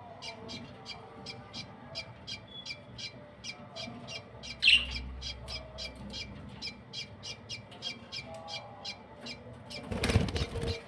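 Budgerigars calling: short high chirps repeating about four times a second, with one louder squawk about five seconds in. Near the end comes a brief loud rustling noise.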